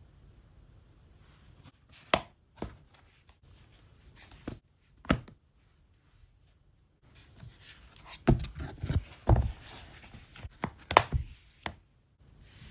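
Hard taps and clicks from handling objects on a hard surface: a few single taps, then a busier run of knocks and rubbing from about eight seconds in.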